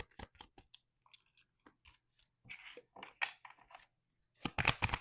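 Tarot cards being handled and shuffled: scattered crisp clicks and snaps of card stock, with a dense, louder flurry of them near the end.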